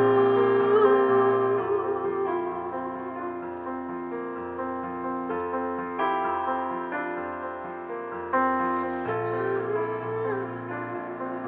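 Slow, soft piano music in an instrumental passage of a song. Sustained chords change every second or two, and a louder chord is struck about eight seconds in.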